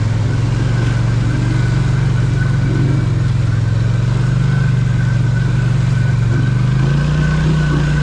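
Polaris Scrambler XP 1000 S ATV's twin-cylinder engine running at a steady speed, its pitch rising a little near the end.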